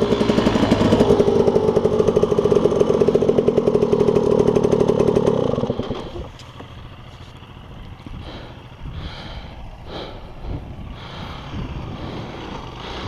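Dirt bike engine running close up under load, loud and rhythmic. About six seconds in it cuts to a much quieter, distant dirt bike working slowly over rocks, with scattered knocks.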